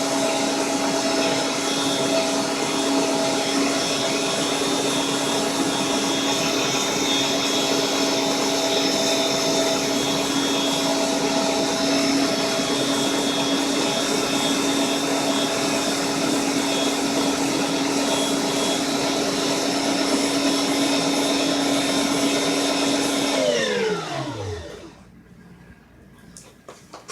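Electric meat grinder motor running steadily while grinding and stuffing sausage. About 24 seconds in it is switched off, and its pitch falls quickly as it winds down to a stop. A few faint clicks follow.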